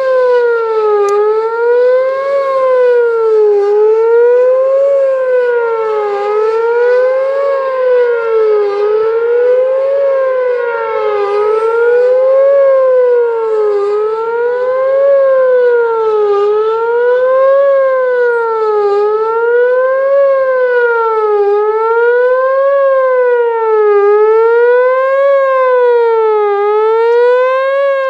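Whelen WPS-4004 electronic outdoor warning siren sounding its fast wail: a loud tone rising and falling in pitch about every two and a half seconds, in an even repeating sweep.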